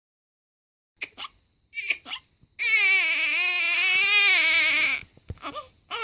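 Newborn baby crying: after a second of silence come two short whimpers, then one long wavering wail of about two and a half seconds, followed by a few short sobs.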